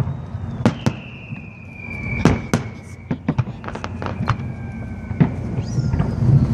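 Aerial fireworks going off: an irregular string of sharp bangs, about a dozen, under high whistling tones that slowly fall in pitch.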